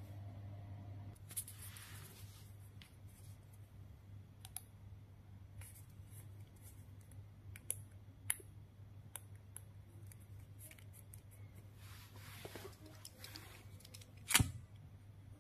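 Faint handling sounds of a plastic ping pong ball and a thin plastic tube being worked by hand: scattered small clicks and two short spells of rustling and scraping, over a steady low hum. A sharper click near the end.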